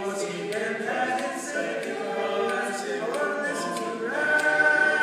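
A men's ensemble singing barbershop harmony a cappella, with close chords moving and held. About four seconds in they swell onto a louder held chord with a bright high note on top.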